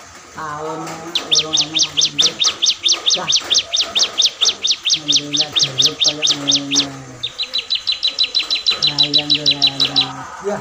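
A small songbird singing a long string of sharp, high chirps repeated at about five a second, then, after a brief break, a faster and more even run of notes lasting about three seconds.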